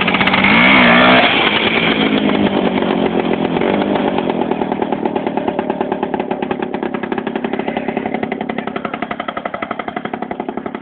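IZh motorcycle's two-stroke engine running with a fast, buzzy beat, loudest as it passes close in the first second or so, then fading steadily as the bike rides off down the road.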